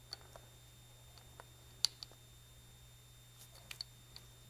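A handful of light clicks from a Moeller boat fuel-gauge sending unit's float, washers and wire arm being handled and slid by gloved hands, the sharpest a little under two seconds in.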